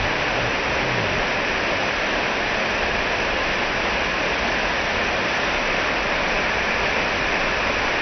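Small waterfall spilling over rocks into a pool: a steady, even rush of falling water.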